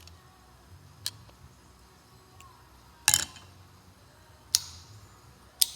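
Sharp clicks of a freshly rebuilt Fuller truck transmission air-shift knob's selector being snapped back and forth by hand, working freely now that the gummy old grease is cleaned out. There are a few clicks, the loudest about three seconds in, and two are followed by a short fading hiss.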